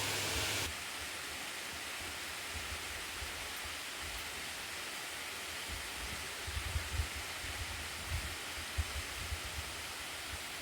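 Sangi waterfall's water rushing in a steady hiss, at its low dry-season flow. It drops a little in level under a second in, and low thumps of wind on the microphone come in the middle seconds.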